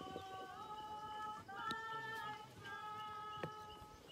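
A woman's voice singing a slow melody, each note held for about a second before stepping to the next, with a couple of faint knocks in the background.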